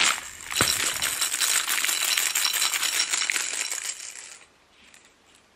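Clear plastic packaging holding toy cat mice, shaken and handled: a dense run of crinkling, rattling crackles that stops about four and a half seconds in.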